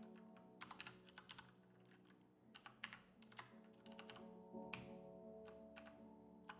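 Faint computer keyboard keystrokes, a quick run of taps in the first second and a half and then single taps now and then, over quiet background music.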